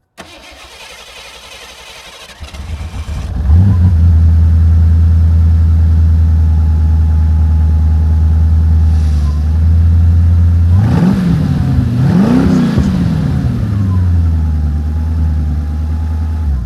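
1988 Ford Crown Victoria's V8 cranking for about a second, catching and settling into a steady idle. It is revved twice in quick succession about eleven seconds in, then drops back to idle.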